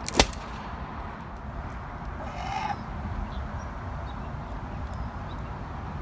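A single sharp bang just after the start, from a homemade hairspray-fuelled potato cannon firing. About two and a half seconds in there is a brief, slightly rising call.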